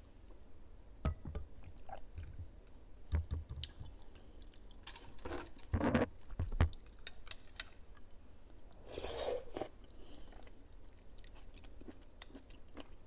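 Close-miked chewing of soft fruit jelly: wet, squishy mouth sounds with scattered sharp smacks and clicks, a cluster of louder ones around six seconds in and a longer wet smear around nine seconds in.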